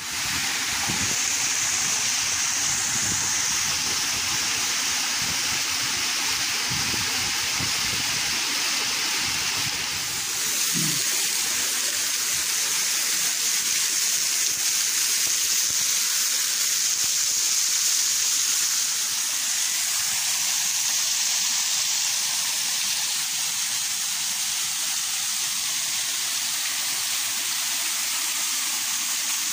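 Waterfall pouring off a rock overhang and spraying down close to the microphone: a loud, steady hiss of falling and splashing water.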